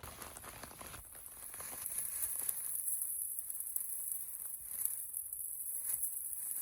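A lit firework, most likely a ground fountain, hissing steadily as it sprays sparks, with many small crackles. The hiss begins abruptly at the start.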